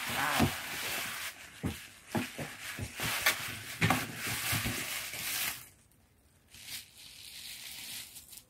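Tissue paper crinkling and rustling as it is pulled out of a paper gift bag, with sharp crackles throughout; it goes much quieter about five and a half seconds in.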